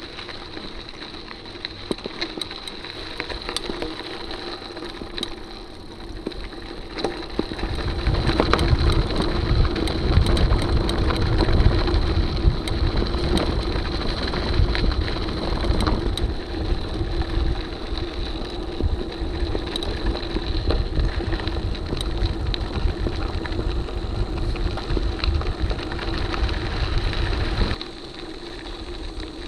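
Mountain bike rolling fast over a gravel dirt road: tyres crunching, small rattles and clicks from the bike, and a low rumble of wind on the bike-mounted camera's microphone. The rumble grows much louder about seven seconds in, as the bike speeds up, and drops off suddenly near the end.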